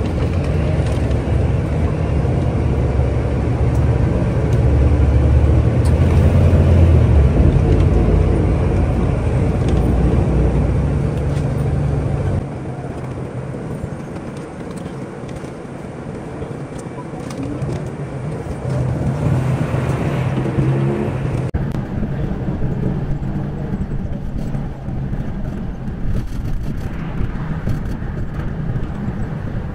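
Cabin noise inside a moving intercity coach bus: engine and road noise. A deep rumble is loudest for the first twelve seconds or so, then it turns quieter and lighter.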